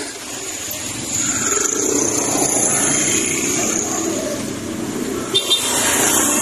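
Motor vehicle on the road: engine and road noise swelling and easing, with two brief sharp knocks a little after five seconds.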